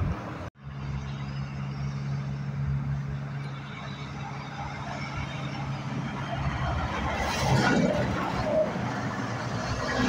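Diesel tractor-trailer engine running with a steady low drone and tyre noise as the truck passes, loudest about seven to eight seconds in. The sound drops out briefly about half a second in.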